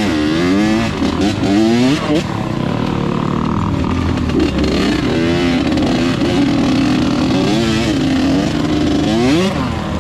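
Small off-road vehicle engine revving, its pitch rising and falling again and again as the throttle is opened and shut.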